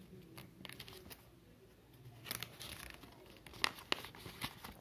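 Faint rustling and crinkling of folded colour paper as hands unfold it and spread it into a fan, with a slightly louder rustle a little under halfway and a couple of short crackles later.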